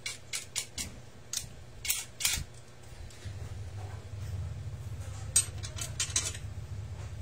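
Metal hand tools clinking and clicking: sockets and a wrench handled and set down on a concrete floor, a quick run of sharp clicks in the first couple of seconds and a few more later. A low steady hum comes in about three seconds in.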